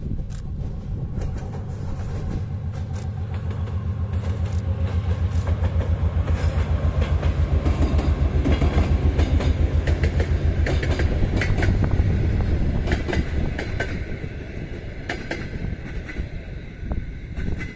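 A 3TE10M diesel locomotive's two-stroke 10D100 engine pulses with a steady beat as it hauls a short suburban train past. It grows louder to a peak a little past the middle, then fades as it moves away, while the wheels click over the rail joints.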